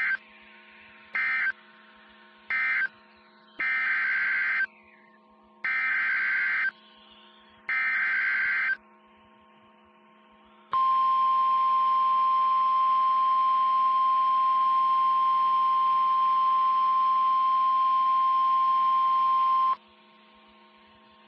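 Emergency Alert System SAME data tones: three short warbling data bursts, then three one-second bursts of the same screeching tones (the coded message header). They are followed by a steady single-pitched tone of about nine seconds, the NOAA Weather Radio 1050 Hz warning alarm tone, over a low steady hum.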